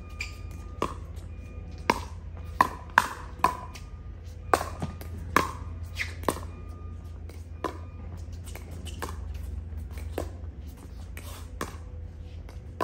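Pickleball paddles hitting a plastic pickleball over and over in a doubles rally: about fifteen sharp hits at an uneven pace, some louder and some softer, each with a short ring.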